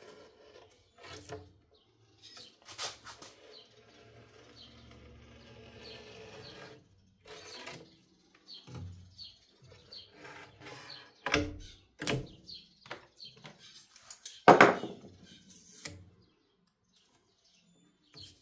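Handling noises from a window sash being worked onto the bottom edge of a pane of window glass on a wooden workbench: scattered clicks and rubbing, then several sharp knocks, the loudest about three quarters of the way through. Faint bird chirps sound in the background.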